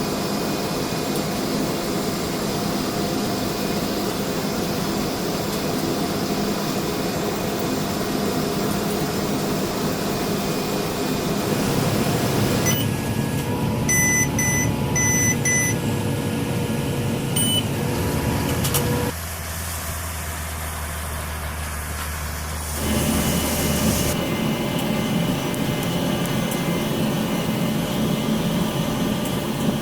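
Farm tractor running with a round hay baler, a steady mechanical drone that changes abruptly several times. About a third of the way in, a quick series of high electronic beeps.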